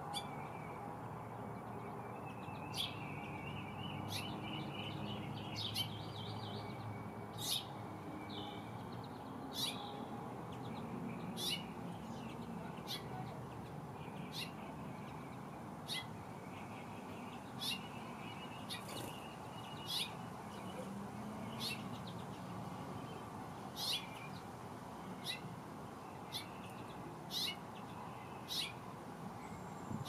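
Songbirds calling: sharp, short chip notes about every one to two seconds, with a soft thin twittering trill now and then, over a steady low outdoor background hum.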